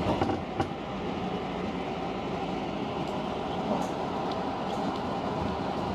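Tobu 50000 series electric train pulling away and running, a steady rumble of wheels and running gear heard from inside the front car, with a couple of sharp clicks in the first second.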